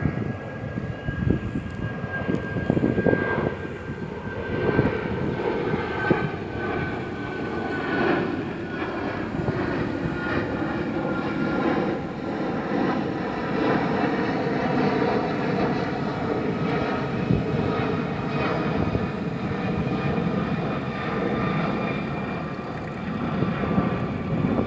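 Twin-engine jet airliner flying overhead: a steady jet roar, with engine whine tones slowly falling in pitch as it passes.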